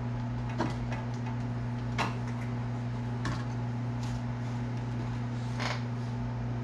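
Several light clicks and knocks of tools and a can being handled on a workbench, over a steady low hum.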